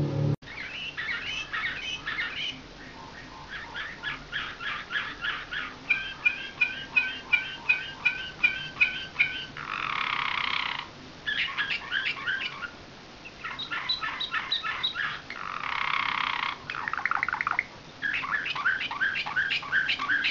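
Slavujar-type song canary singing a varied nightingale-style song: rolling trills and runs of repeated notes at about three a second, broken by two harsh rasping bursts and short pauses between phrases.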